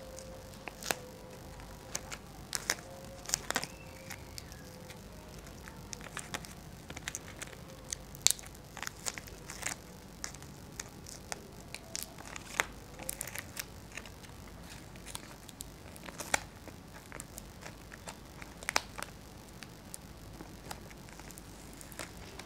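A paper-backed sticker being handled and its backing paper peeled off: irregular crackles and rustles of paper and plastic, with sharp clicks here and there, the loudest about eight seconds in.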